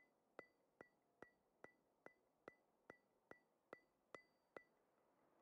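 Faint, even ticking, a little over two ticks a second, each tick with a brief high ring. The ticking stops about a second before the end.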